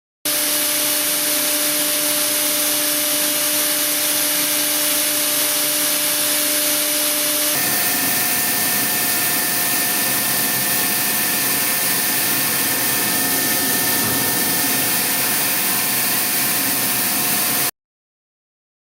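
A CNC machining center's spindle runs a polishing tool over mold steel, making a steady hiss with a high whine. About seven and a half seconds in, the whine jumps to a different pitch, as at a change of spindle speed or pass. The sound cuts off suddenly near the end.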